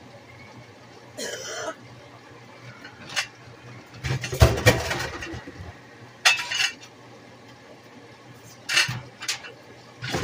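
Kitchen clatter: dishes and utensils knocked and set down at the counter and sink in several separate bursts, the loudest cluster about four to five seconds in.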